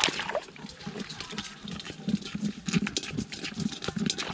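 Hand scooping and splashing muddy, soapy water out of a small hole in the ground, with a splash at the very start. After it comes a quick series of short low gurgling sounds with small wet clicks.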